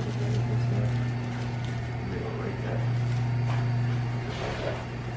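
Steady low electric hum, as of a motor or appliance running, with a few faint soft knocks and rustles of movement over it.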